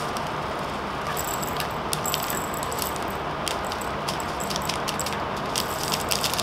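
Tiny round resin diamond-painting drills being poured from a small plastic bag into a plastic storage jar: a light scatter of small clicks and rattles, thickest near the end.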